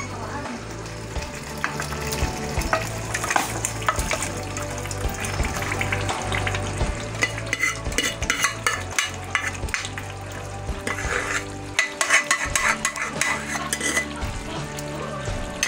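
Cooked mutton pieces being spooned into a pan of masala, frying and sizzling, while a wooden spoon scrapes and taps against the pan; the clicks and scrapes come thickest a few seconds before the end. A steady low hum runs underneath.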